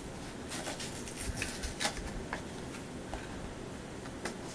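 Small cardboard blind box being worked open by hand: scattered rustles and sharp little clicks of cardboard, with the loudest click about two seconds in and another near the end.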